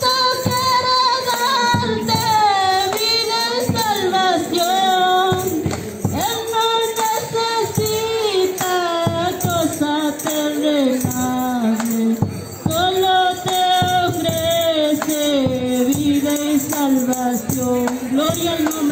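Spanish-language evangelical hymn of praise sung to a steady tambourine beat.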